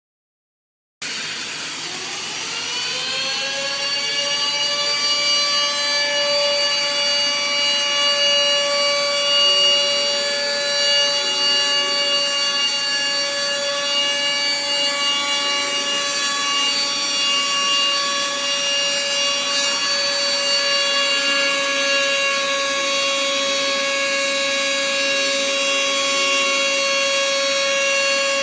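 Robot-mounted deburring spindle spinning up about a second in, its whine rising in pitch over a few seconds and then holding steady. It runs at speed while the cutter works along the edge of a moulded part, with a rough cutting and rubbing sound under the whine.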